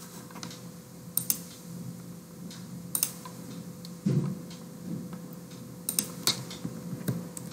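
Computer keyboard keystrokes: scattered, irregular clicks, with a dull low thump about four seconds in, over a faint steady hum.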